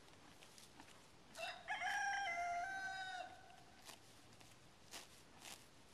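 A rooster crowing once, a stepped call of about two seconds, followed by a few faint clicks.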